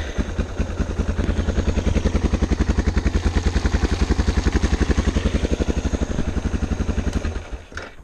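Suzuki DR650's single-cylinder four-stroke engine running with an even, rapid beat right after starting, then shut off about seven and a half seconds in. It keeps running while in gear with the side stand down, the sign that the side-stand kill switch has been bypassed.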